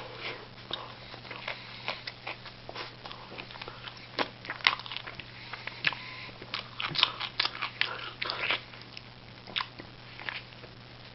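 A person chewing a hamburger close to the microphone: irregular wet mouth clicks and smacks, bunched most thickly in the middle, over a faint steady hum.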